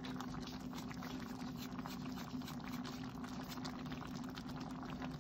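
Squash and sardine stew simmering in a frying pan: a steady fine crackle of small bubbles popping in the sauce, over a steady low hum.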